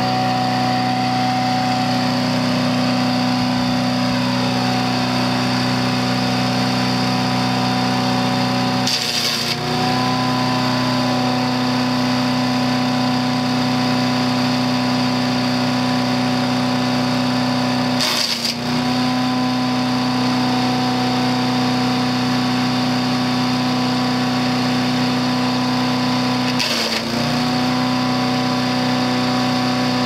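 Harbor Freight Predator 212cc chipper shredder's single-cylinder engine running steadily at full speed, bogging down briefly three times, about nine seconds apart, with a sharp crack each time a branch is pulled in and chipped.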